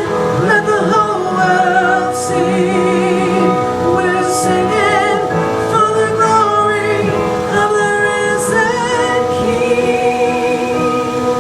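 Live church worship music: a woman singing a slow praise song with vibrato over a steady instrumental accompaniment.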